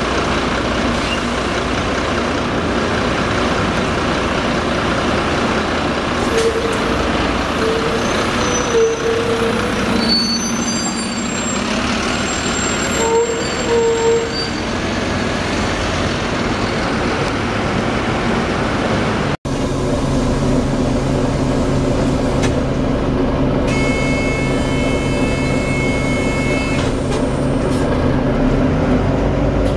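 Volvo B9TL double-decker bus on the move, its drivetrain running with the bad axle noise, with a few brief tones rising out of the running noise; the recording cuts about two-thirds through to another stretch of the same running bus.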